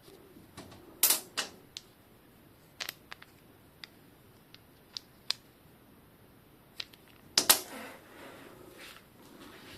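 Small bicycle headset parts being handled and set down while the headset is taken apart: a scattered series of sharp clicks and taps, the loudest about seven and a half seconds in, followed briefly by a softer rubbing sound.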